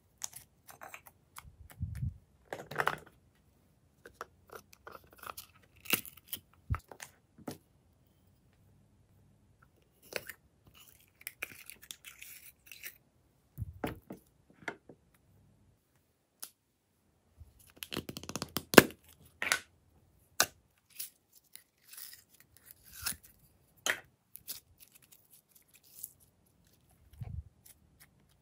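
Glossy slime being poked, pressed and kneaded by hand: irregular sticky clicks and short crackles, densest about two-thirds of the way through.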